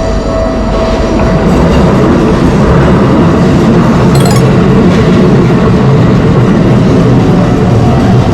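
A train passing, a loud steady rumble of wheels and cars that swells about a second in, with a brief light clink about four seconds in.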